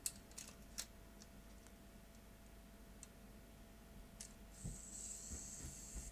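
Faint small clicks of metal probe tips touching a camcorder tape mechanism's contacts. About four and a half seconds in, a brief high whirr lasting about a second and a half, with a few soft knocks, from the tape-loading motor and gears being driven from a bench power supply.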